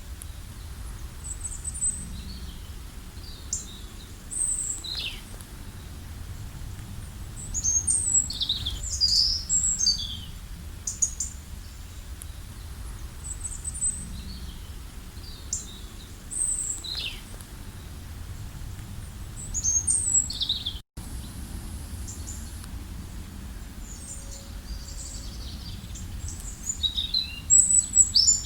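Wild birds chirping and calling in short, high, quick notes, several at a time, over a steady low background rumble. The sound cuts out for an instant about 21 seconds in.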